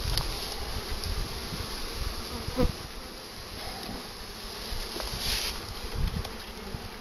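A mass of honey bees buzzing as they are shaken out of a wooden package box into a hive, with one sharp knock about two and a half seconds in.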